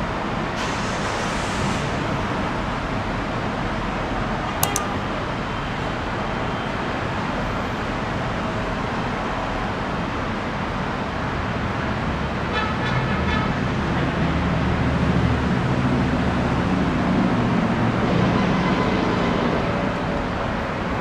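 Steady noise of jet aircraft engines, growing louder and deeper for several seconds from a little past the middle. There is one sharp click a few seconds in.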